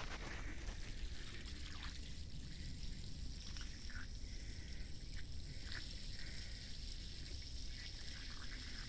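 Water pouring steadily from the end of a plastic pipe onto muddy ground: the outflow of a running solar-powered submersible well pump.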